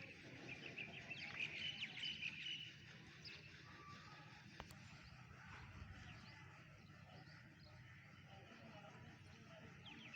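Faint bird chirping in short clusters during the first few seconds, over a steady low outdoor background noise.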